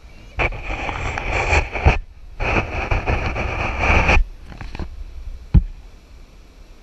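Two long bursts of scraping noise, then a single sharp knock near the end.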